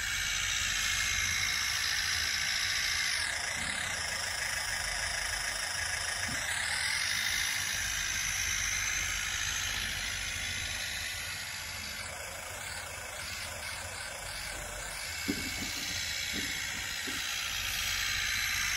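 Electronic sound module in an RC Massey Ferguson 185 model tractor playing a simulated tractor engine through its small speaker, mixed with the high whine of the model's electric drive as it pushes soil. The whine dips and rises a few times, and there is one sharp click about fifteen seconds in.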